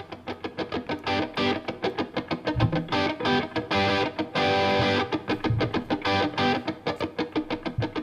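Background music led by a guitar picking quick, rapidly repeated notes.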